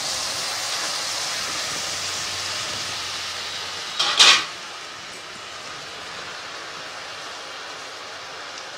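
Milk sizzling as it hits hot ghee and melted sugar in an aluminium kadai, slowly dying down. A metal spatula scrapes against the pan once, loudly, about four seconds in.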